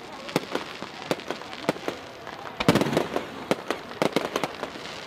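Aerial fireworks bursting: an irregular run of sharp cracks and bangs, thickest in a dense cluster about two and a half seconds in.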